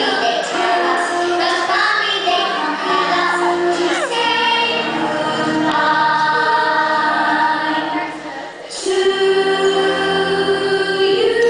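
Several voices singing in harmony, a slow melody of long held notes; the voices drop briefly about eight and a half seconds in, then come back on a new held chord.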